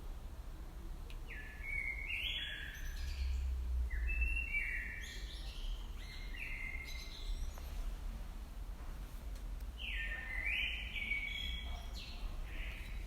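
A songbird chirping in three bursts of quick, stepped notes, over a steady low rumble of outdoor ambience.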